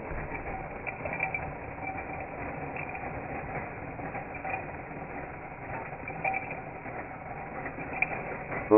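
Battery-operated Trumpet Monkey toy's motor and gear mechanism running steadily, with light scattered clicks.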